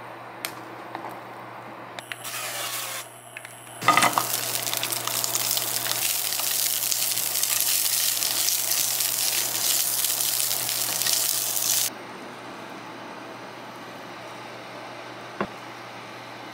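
Cocktail sausages sizzling in hot oil in a nonstick frying pan while being stirred with a wooden spatula. The sizzle starts sharply about four seconds in, after a brief hiss, and cuts off suddenly about eight seconds later.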